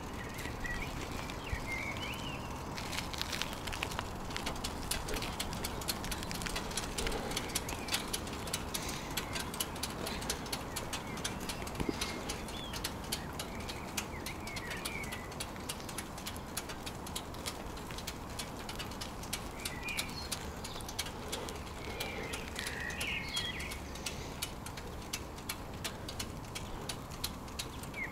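Small birds chirping in short scattered calls over a steady rush of wind and tyre noise from a moving bicycle, with a fast run of clicks through the first half.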